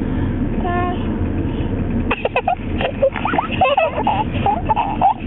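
A baby laughing in short, rapid bursts from about two seconds in, over a steady low rumble of car road noise.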